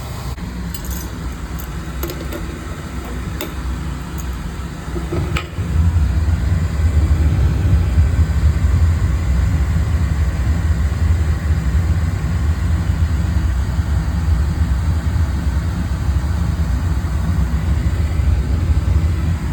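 Oil-fired boiler burner running with a steady low rumble, a few light clicks in the first seconds, then a sharp click at about five and a half seconds after which the low rumble grows much louder and holds. Excess unburnt fuel in the combustion chamber is burning off, with smoke.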